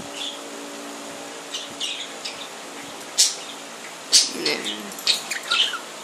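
Budgerigars giving short, sharp chirps, scattered through, over the steady hum of an electric fan.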